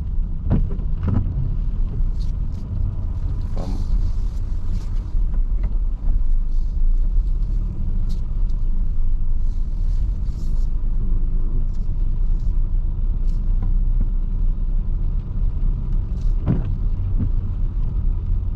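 Steady low rumble of a car heard from inside the cabin as it moves slowly while being parked, with scattered light taps of rain on the car.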